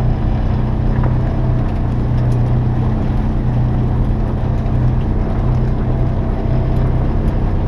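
Off-road vehicle's engine running steadily while riding a gravel track, a constant low drone with rough tyre and road noise over it.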